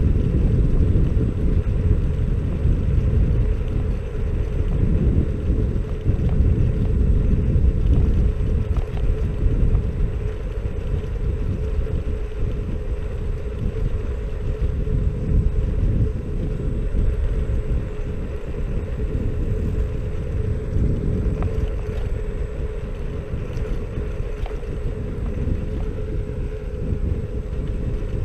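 Xiaomi Mi Scooter Pro 2 electric scooter riding along an asphalt road: a steady low rumble of wind and road noise that swells and eases, with a steady whine held under it.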